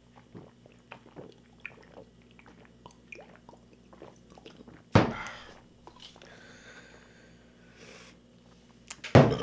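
Men gulping beer straight from glass bottles: a run of small wet swallows and clicks, with one sudden loud knock about five seconds in.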